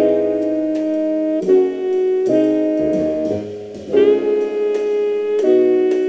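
Slow jazz music: saxophone over piano chords, each held for about a second before the next, with light drums.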